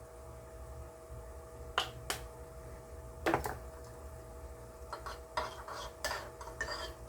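Metal utensil clinking against dishware: a few separate sharp clinks, then quicker, busier clinking from about five seconds in, over a faint steady hum.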